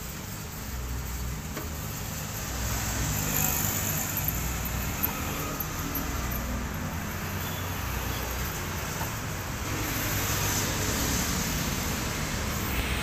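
Road traffic passing close by: a steady rumble of engines and tyres, with vehicles swelling louder about three seconds in and again near ten seconds.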